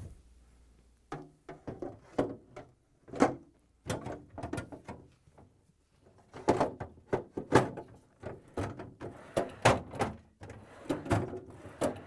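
Plastic freezer basket being seated on metal drawer slide rails and pushed into the freezer: a series of plastic clicks, knocks and rattles as its tabs drop into the rail cutouts and it slides home.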